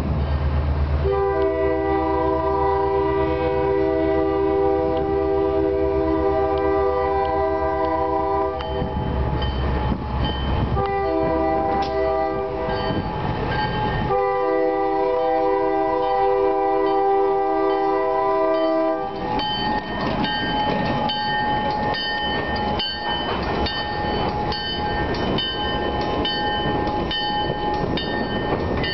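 Canadian National switcher locomotive sounding its air horn over the diesel engine's low running: a long blast, a short one, then another long one. After the horn stops, the locomotive passes close, with regular metallic clanking.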